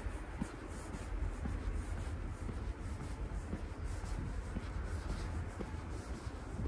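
Footsteps of a person walking on pavement, soft ticks about every half second, over a steady low rumble of wind on the microphone.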